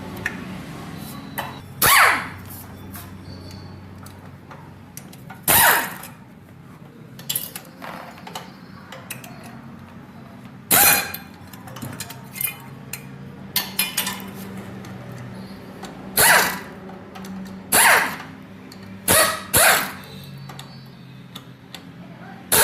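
Repair work on a motorcycle engine: about eight loud, short bursts of tool noise at irregular intervals, with lighter metal clicks between them, over a steady low hum.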